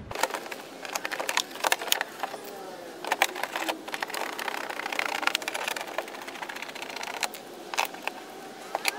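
Plastic splash guard being fitted by hand to a wheel arch: irregular clicks and taps of hard plastic as it is positioned and pressed into place.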